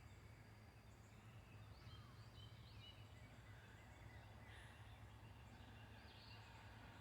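Near silence with faint bird calls: a few short chirps about two seconds in and again near the end, over a low steady hum.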